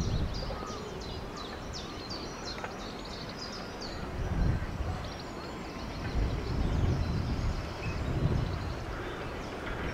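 Small birds chirping in quick short calls, thickest in the first few seconds and thinning out later. Under them runs a low rumbling background noise that swells and fades a few times.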